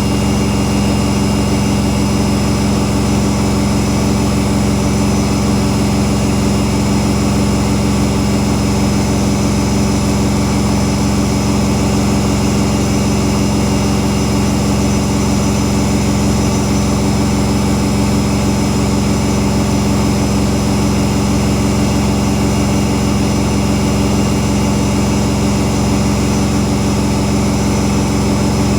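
Whirlpool Indiana 1400 washing machine spinning at full speed, 1400 rpm: a loud, steady drum hum and whine with no change in pitch.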